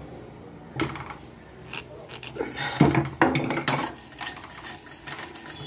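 Metal clinking and knocking, as of tools and small metal parts being handled: one sharp clink about a second in, then a quick cluster of clanks and taps in the middle.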